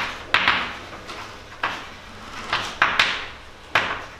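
Chalk writing on a blackboard: a quick, irregular series of sharp taps and short scratchy strokes, about nine in four seconds, each fading fast.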